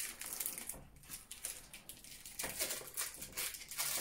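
Plastic candy wrapper crinkling and crackling in the hands as a tamarind-and-chili candy stick is unwrapped, in quick irregular crackles.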